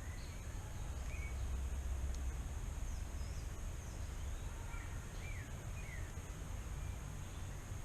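Rainforest ambience: a steady high-pitched insect drone with short bird chirps now and then, over a low rumble.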